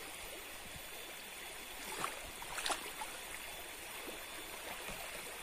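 Steady rushing of a river, with a few brief clicks about two to three seconds in.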